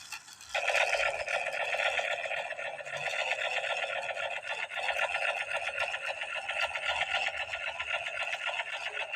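Toy M60 machine gun's electronic firing sound from its small built-in speaker: a rapid, steady rattle that starts about half a second in and keeps going.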